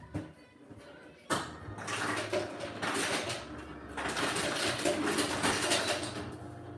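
Ice cubes clattering and rattling as more ice is gathered for a frozen drink. A sharp click sounds near the start, and the clatter begins suddenly about a second in and runs for several seconds.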